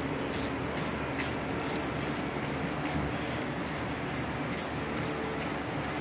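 Ratchet wrench clicking in a steady back-and-forth rhythm, about three clicks a second, as it backs out a rusted, unlubricated exhaust manifold bolt that has been loosened by induction heating.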